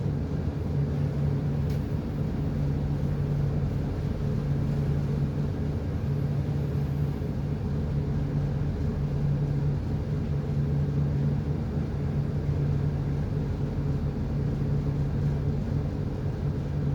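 Ship's diesel engine running steadily, a continuous low drone with an even hum.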